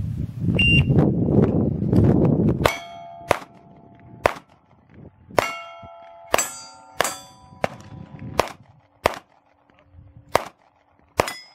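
A shot timer beeps once, then a handgun fires about eleven shots in a string over roughly nine seconds at steel targets. Many shots are followed by the ring of steel plates being hit, and one low ring carries on to the end. A rush of loud low noise fills the first two and a half seconds.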